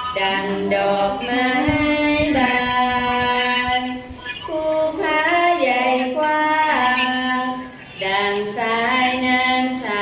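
A woman singing a slow song in long held notes, with no instruments heard, pausing briefly between phrases about four and eight seconds in.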